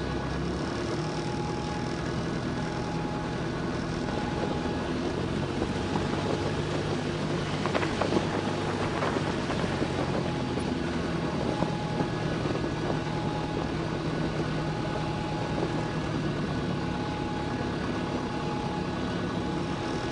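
Piston engine and propeller of a Grumman light single-engine airplane running steadily at low taxi power, a constant droning hum.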